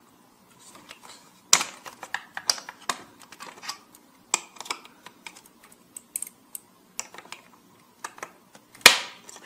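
Irregular light clicks and taps as a metal prying tool works at the clips of a dishwasher's plastic door-lock housing, with one louder, sharper snap near the end.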